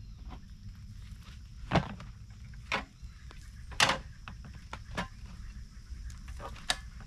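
A handful of separate knocks and clatters, about five, the loudest about two and four seconds in, over a steady low rumble.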